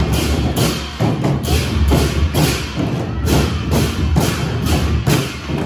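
Percussion music: drum and cymbal strokes beating a steady rhythm of about two strokes a second.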